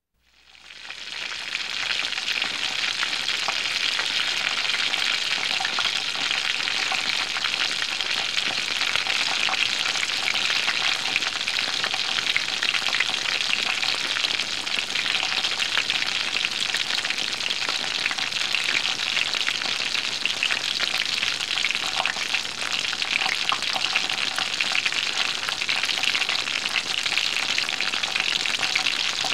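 Food sizzling and frying in a pan: a dense crackling hiss that fades in over the first second or so and then holds steady.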